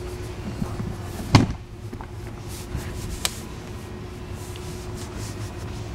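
Hinged seat lid of a boat's under-seat storage compartment being opened, with one sharp knock about a second and a half in and a lighter click a couple of seconds later.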